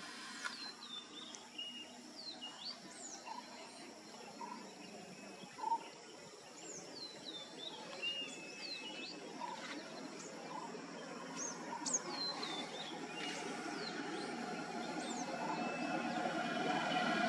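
Wild birds calling repeatedly with short high chirps and whistles over steady outdoor background noise. A vehicle is heard approaching, growing louder over the last few seconds.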